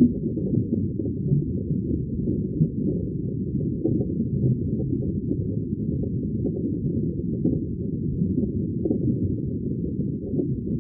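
Steady, muffled low rumbling underwater ambience, with no high sounds at all and no distinct events.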